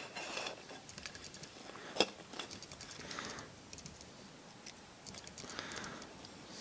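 Handling noise of a lamp cord being pulled out through a felt-covered lamp base: soft rustling and scattered small clicks, with one sharper click about two seconds in.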